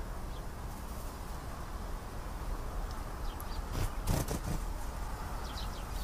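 Domestic canary giving a few faint, short chirps over a steady background hiss, with a brief rustle about four seconds in.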